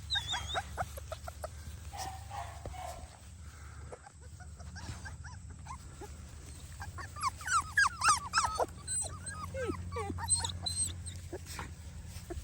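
Four-week-old puppies whimpering and yipping in many short, high, squeaky calls, thickest about seven to nine seconds in, over a low steady hum.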